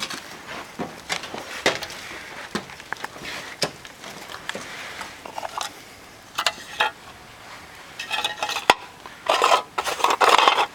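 Footsteps crunching on a gritty, debris-covered floor with scattered clicks and scuffs. Near the end come louder scraping, rattling bursts as a rusty metal tin is picked up off the floor.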